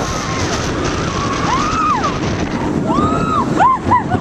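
Steady rush of wind and track noise on the Dueling Dragons roller coaster at speed, with riders giving short rising-and-falling screams about one and a half seconds in, again about three seconds in, and three quick ones near the end.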